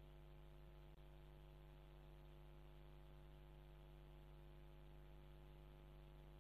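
Near silence with a faint, steady electrical mains hum.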